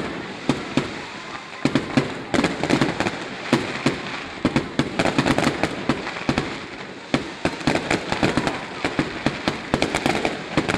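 Aerial fireworks bursting in quick succession: a dense run of sharp bangs and crackles, several a second, with no let-up.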